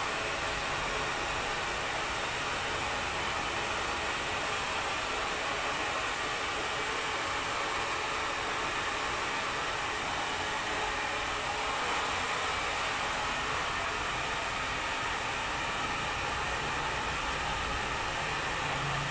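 Steady, unbroken rushing noise with no clear pitch, holding the same level throughout.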